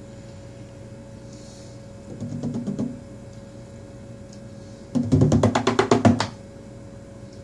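A cat pawing at a door, rattling it in two bursts of rapid knocks: a short one about two seconds in and a louder, longer one near the end. A faint steady hum runs underneath.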